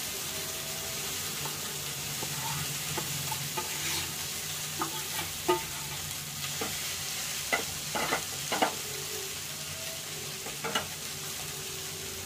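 Green peas sizzling steadily in hot mustard oil in an aluminium kadhai while boiled potato pieces are tipped in from a steel bowl and scraped and stirred with a metal spoon. The spoon clinks sharply against the bowl and pan a dozen or so times, the loudest clinks a little past the middle.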